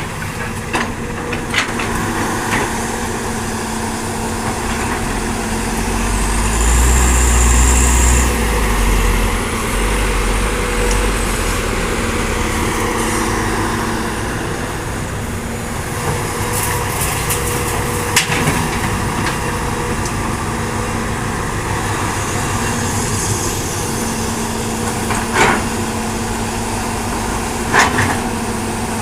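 Hitachi hydraulic excavator's diesel engine running steadily under load as it digs and loads soil, swelling into a heavy low surge about a quarter of the way in. A few sharp knocks sound in the second half.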